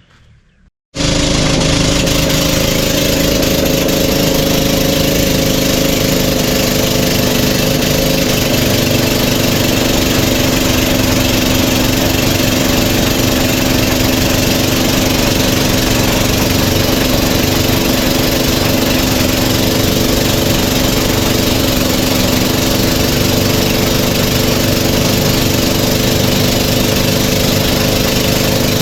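Generator-powered chaff cutter running steadily and very noisily, a constant engine drone that starts suddenly about a second in.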